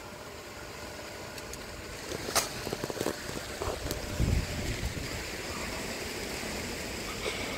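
Steady outdoor background noise with wind on the phone's microphone. A sharp click about two and a half seconds in, and a brief low rumble a little past four seconds.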